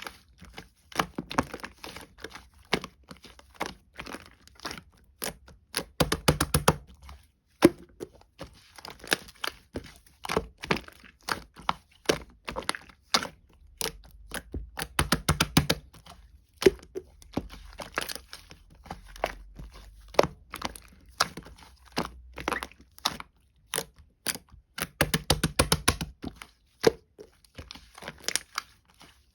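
Glossy pearl slime being pressed, squeezed and stretched by hand, giving a constant run of sharp clicks and small pops from trapped air. Denser, louder bursts of popping come about six, fifteen and twenty-five seconds in.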